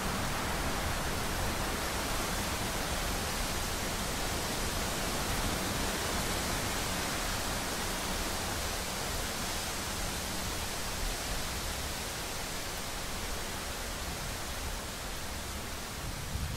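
Steady hiss of rain from a thunderstorm recording, even and unbroken, with no thunderclap.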